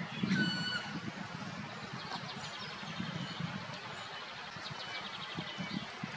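Black woodpecker giving one drawn-out, evenly pitched call, about half a second long, shortly after the start. A low steady rumble lies underneath.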